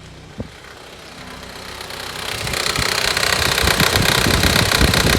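A loud, harsh noise with an irregular knock from the engine of a 2012 Honda CR-V, idling in gear. It sets in after a click about half a second in and builds over a second or so to a steady racket. It comes on when the fan/air conditioning is switched on, happens only in reverse or drive and not in neutral, and the owner takes it to be related to the fan.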